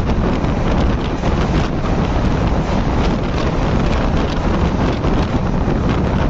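Wind buffeting the microphone of a camera held outside a fast-running express train's coach, over the steady rumble of the train running through a station without stopping.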